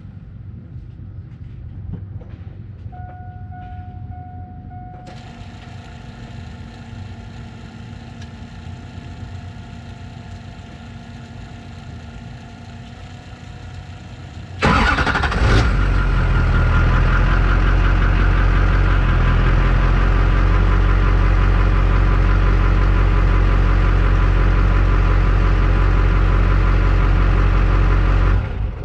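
A Chevrolet LB7 Duramax 6.6-litre V8 turbodiesel is started after a fuel filter change: a short two-note tone and then a steady whine are heard before the engine fires about halfway through. It then runs steadily at idle.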